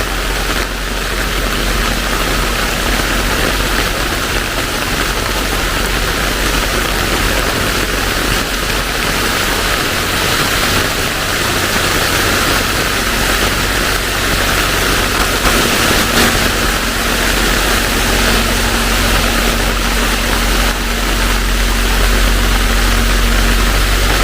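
Heavy rain pouring steadily, a dense, even hiss of water. About two-thirds of the way through, a faint steady hum joins it.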